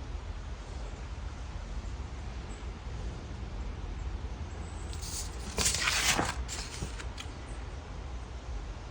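A steady low hum, and about two-thirds of the way in a brief rustle or scrape lasting about a second, followed by a couple of small clicks: the sound of parts being handled.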